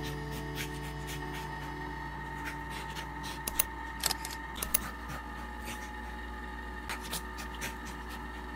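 Dog rolling and wriggling on its back on bedding: soft rustling and scratching, with a few sharp clicks between about three and a half and five seconds in, over a steady faint hum.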